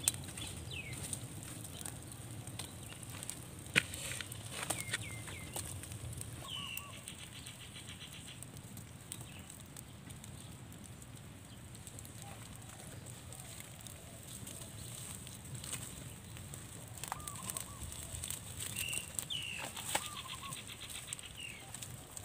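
Open fire of dry palm fronds and sticks crackling, with scattered sharp pops. Birds chirp a few times in the background, including quick repeated trills.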